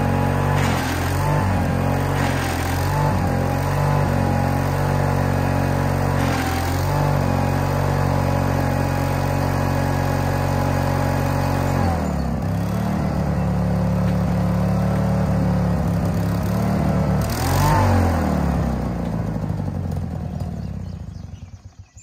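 Case 1816C skid steer's engine running, its pitch shifting about halfway through and rising and falling briefly near the end before dying away. It doesn't sound good, which the owner puts down to the pump being really loose.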